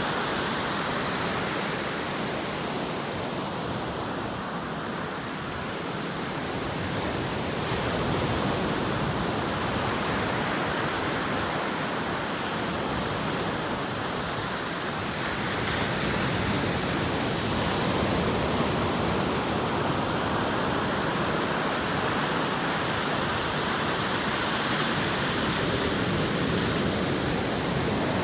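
Atlantic Ocean surf breaking and washing ashore in a continuous roar, swelling and easing every several seconds as the waves come in.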